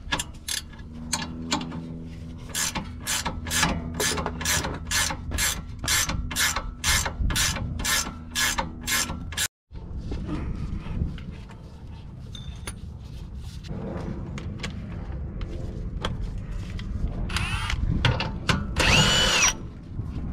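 Ratcheting wrench clicking in steady strokes, about two or three a second, working a rear lower control arm bolt loose. After a sudden break, a power tool whirs briefly near the end, its pitch rising and then falling.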